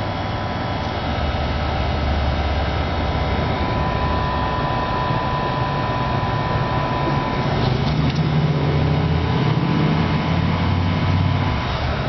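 A steady machine drone with a low rumble and a thin steady tone, the rumble moving slightly higher in pitch about halfway through.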